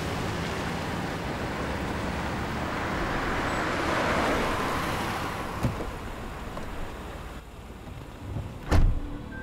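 Cars driving past, their rush swelling about four seconds in and fading away, with a small click and then a sharp thump near the end.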